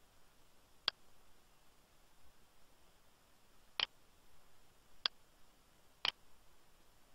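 Computer mouse button clicking four times, single sharp clicks a second or more apart, over faint background hiss.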